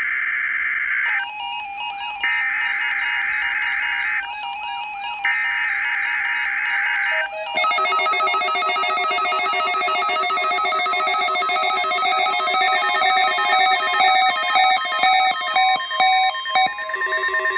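NOAA Weather Radio Required Weekly Test header: screeching two-tone digital data bursts (SAME code), the end of one about a second in and two more full bursts of about two seconds each with short gaps between. This marks the start of an alert-coded test broadcast. From about eight seconds in, a beeping electronic tone sequence runs for about ten seconds, its pitches changing step by step like a ringtone.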